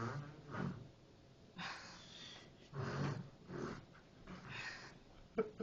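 A young child making funny noises with his breath: about five short, breathy bursts in a row with brief pauses between them.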